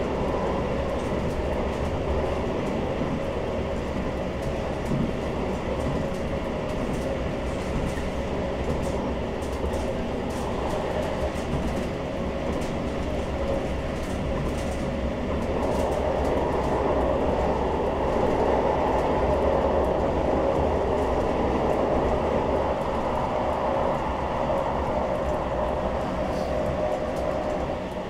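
CAF Urbos 3 tram running between stops, heard from inside the car: a continuous rumble and hum of wheels on rail, with a few steady tones in it and faint small clicks. It grows louder about halfway through.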